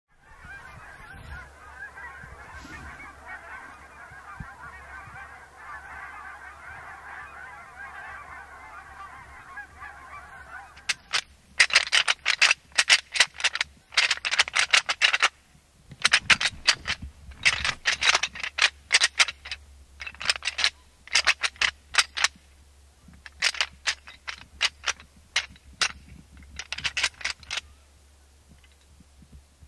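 A flock of geese calling: a dense, far-off chorus of honks at first, then from about eleven seconds in, loud honking in quick bunches of sharp calls close by, fading near the end.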